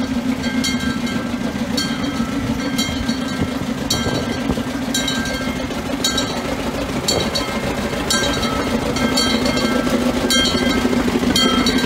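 Small Plymouth switcher locomotive's engine running steadily as it rolls slowly past with two flatcars. Sharp metallic clicks, each with a brief ringing squeal, come from the wheels on the rails about once a second. The sound grows louder near the end as the locomotive comes close.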